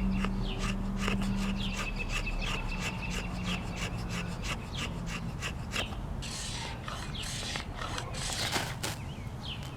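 Rapid, irregular rasping strokes of a blade or striker scraping shavings off a resinous pine fatwood knot, with a harsher run of scrapes about six to nine seconds in.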